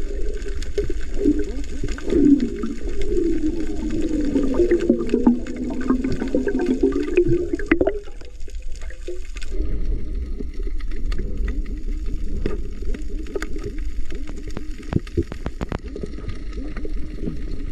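Muffled underwater sound picked up by a submerged camera during a night dive: rushing water with a wavering low drone for the first eight seconds or so, then thinner, with scattered sharp clicks.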